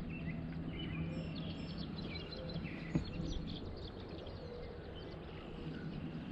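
Small birds chirping over a steady low background hum, with a single knock about three seconds in.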